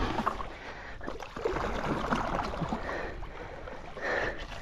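Water sloshing and splashing against the hull of a stand-up paddleboard as it moves across the water, pulled along by a hooked fish.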